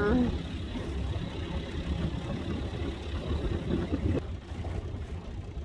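1991 Mercury 25 hp two-stroke outboard motor running steadily, driving the boat along.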